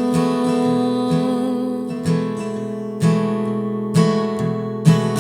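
Acoustic guitar strumming a slow chord accompaniment. The chords ring on, with fresh strums about once a second in the second half.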